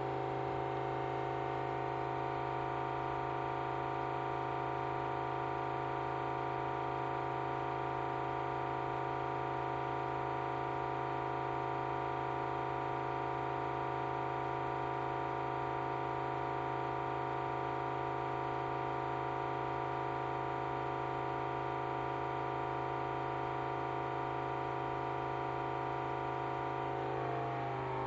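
Hoover H-Dry 500 laundry machine running its drum: a steady loud drone with a strong low hum and a cluster of steady tones above it, which shift and waver near the end. This is the noise level the owner thinks is too loud, which a service engineer called normal after replacing a drum suspension clip.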